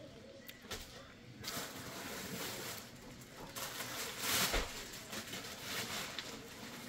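Plastic bag crinkling and thin nylon inflatable fabric rustling as a folded blow-up is pulled from its bag and shaken open, starting about a second and a half in and loudest about four and a half seconds in.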